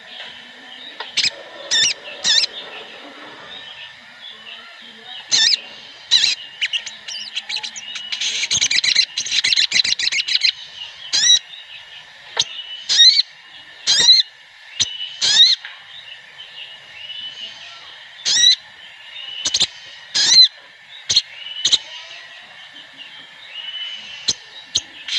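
Brown-throated sunbirds (sogon) calling: a string of sharp, high chirps about a second apart, with a dense burst of rapid twittering about eight to ten seconds in. It is a flock ('ombyokan') recording of the kind played as a lure to get a caged sogon to start singing.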